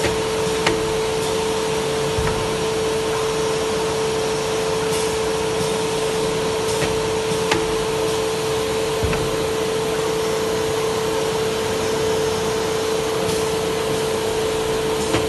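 CNC wood router running with a steady loud machine noise and a constant whine, with a few sharp clicks every second or two as its linear automatic tool changer works.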